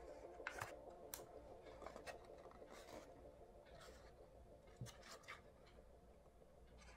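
Near silence, with faint, scattered clicks and rustles of colored paper being handled and folded.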